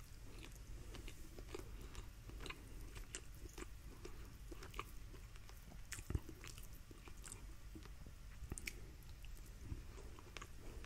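Faint chewing of rotisserie chicken eaten by hand, with soft mouth clicks scattered through and one a little louder about six seconds in.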